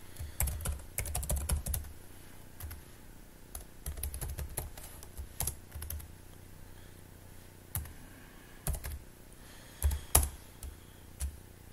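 Typing on a computer keyboard in irregular bursts of keystrokes, with pauses between fields and a few single heavier keystrokes near the end.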